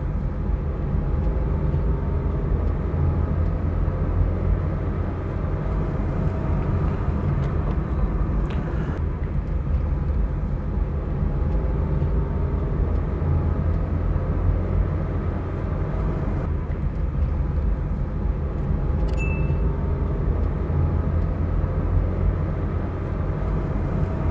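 A car driving steadily along a road: an even low rumble of engine and tyres, with faint tones that drift slowly in pitch. A single short high chirp sounds near the end.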